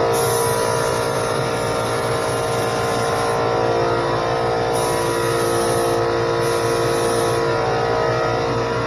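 A SprayIT R500 LVLP gravity-feed spray gun hisses as it sprays paint in three passes, cutting in and out as the trigger is pulled and released, over the steady running of a small 21-gallon air compressor.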